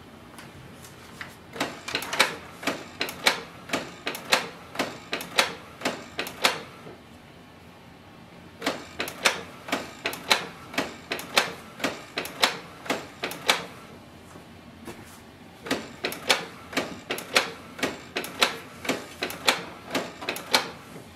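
Canon PIXMA TS3700 inkjet printer running a deep cleaning cycle on its clogged printhead. Its mechanism clicks and clacks rapidly, about three times a second, in three runs of roughly five seconds each with short quiet pauses between them.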